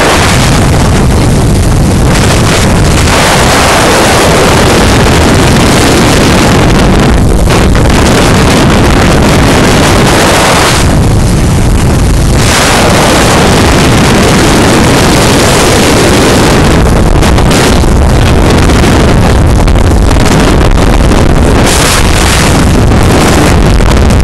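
Heavy wind noise buffeting the phone's microphone over a boat running at speed: a Suzuki outboard motor and the rush of water and spray past the hull. The wind eases briefly about eleven seconds in.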